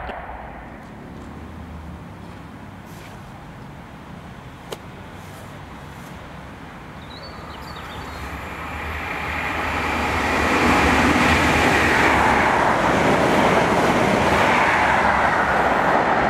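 A train approaching. Its running noise grows over a couple of seconds and then holds loud and steady.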